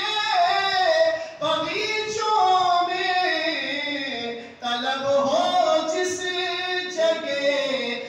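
A man singing a devotional manqabat solo and unaccompanied into a microphone, in long ornamented held phrases broken by short pauses about every two to three seconds.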